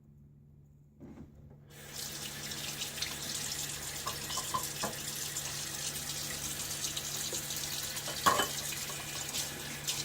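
Bathroom sink tap turned on about two seconds in, water running steadily into the basin, with a few small ticks and one sharp knock near the end.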